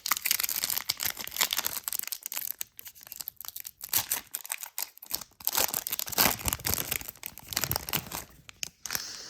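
A trading card pack's wrapper being torn open and crinkled by hand, an irregular crackling and rustling with a few short pauses.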